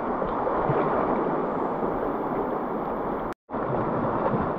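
Shallow river water rushing and splashing close to the microphone as children swim and wade in it, a steady even wash of water noise. It breaks off for an instant a little over three seconds in.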